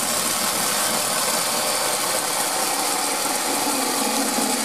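Eckman telescopic pole saw's chainsaw head running at a steady speed as its chain cuts into a small log. The sound starts suddenly and holds level.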